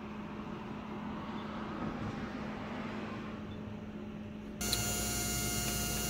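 Slot-car tyre truer's small electric motor spinning a foam-rubber front tyre against the abrasive, a steady hum with a sanding hiss as the rubber is turned down to true. About four and a half seconds in it cuts abruptly to a louder steady motor hum with several whining tones.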